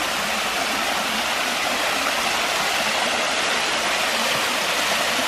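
Waterfall running: a steady, dense rush of falling water.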